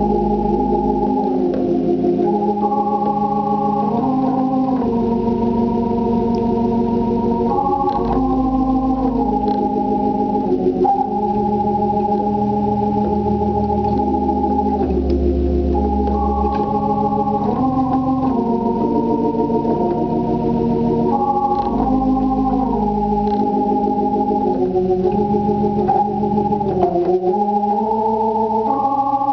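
Hammond B-3 organ playing slow, sustained chords that change every second or two, with deep bass notes held underneath.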